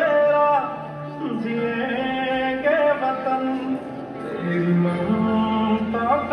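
A recorded song playing: a singing voice with long held, sliding notes over instrumental accompaniment, as dance music through stage loudspeakers.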